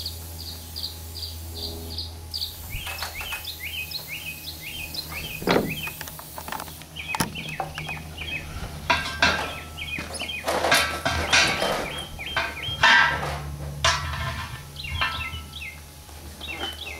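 Small birds chirping in quick repeated notes. Several sharp metallic clanks and scrapes from work on the tire come through about five seconds in and again through the middle, over a steady low hum.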